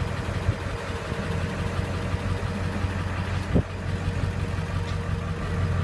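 Ford 7.3 Power Stroke V8 turbo-diesel pickup engine idling steadily, with a single short knock about three and a half seconds in.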